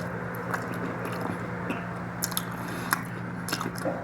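Close-up chewing of mutton and rice, with wet smacking clicks from the mouth every half second or so.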